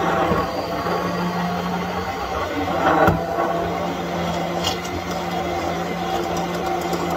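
Corded immersion blender running steadily with its blades down in a glass mason jar, blending blueberries, yogurt and milk into a thick smoothie. A short thump about three seconds in.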